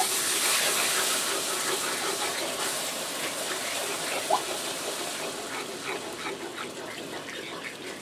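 Milk being poured from a jug into a hot flour-and-drippings roux in a cast iron skillet and stirred in with a wooden spoon, the first step of turning the roux into sawmill gravy. It makes a steady hiss that is loudest as the milk goes in and slowly fades, with light spoon scrapes toward the end.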